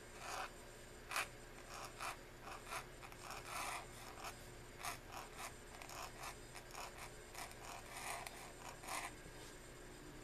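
Pointed dip-pen nib in an oblique holder scratching across paper as letters are written: a run of short, irregular scratchy strokes that stops about a second before the end.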